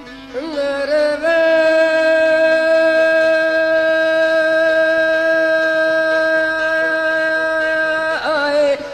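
A sung voice in a folk song rises into one long held note that lasts about seven seconds, then breaks into a wavering ornament near the end, over a quieter accompaniment.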